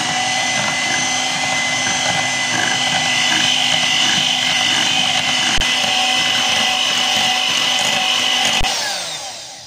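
Electric hand mixer running with a steady whine, its twin wire beaters whisking a runny egg-and-butter batter in a glass bowl. It is switched off about 9 seconds in and the motor winds down.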